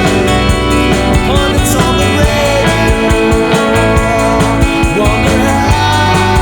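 Psychedelic rock band music with no lyrics: sustained chords over a steady drum beat.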